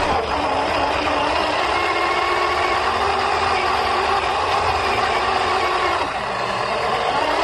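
Steady whine of a radio-controlled Axial SCX10 II crawler's electric motor and gears, shifting slightly in pitch about six seconds in.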